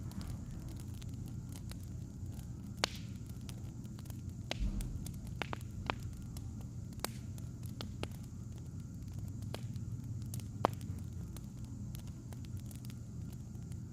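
Wood fire crackling, with scattered sharp pops at irregular intervals over a steady low hum, and one dull low thump about a third of the way in.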